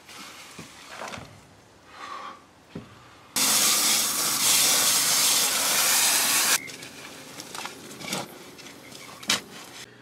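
Water spraying hard from a hose onto a compost pile for about three seconds, starting and stopping abruptly, with light knocks and rustles of handling before and after.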